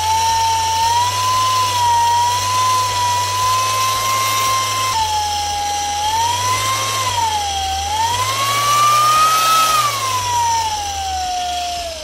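Small 3D-printed air raid siren driven by a 775 DC motor on low power, wailing: one tone that slowly rises and dips with the motor's speed, then falls away near the end as it spins down. A steady low motor hum runs under the wail, which the maker thinks is the motor's own noise.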